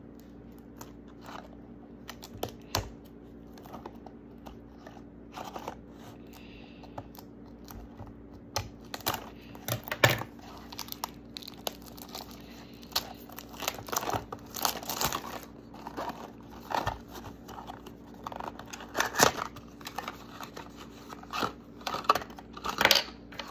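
A small cardboard toy box being cut with scissors and torn open, then thin plastic wrapping crinkled and pulled apart by hand: irregular crackles, rustles and snips, busier in the second half.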